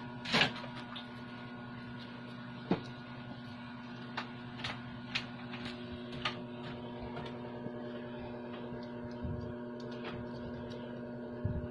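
A steady hum made of several steady tones, with a brief louder burst just after the start, a sharp click a little under three seconds in, and a few faint scattered ticks.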